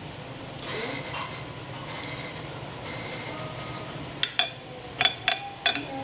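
A metal fork clinking and scraping against a glass plate: a run of about six sharp clinks in the last two seconds.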